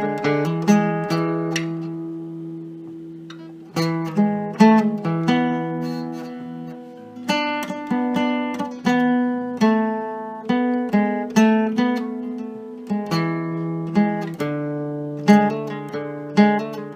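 Instrumental music on an acoustic plucked-string instrument, strummed in rhythmic chords. About two seconds in one chord is left to ring and fade, and the strumming starts again nearly two seconds later.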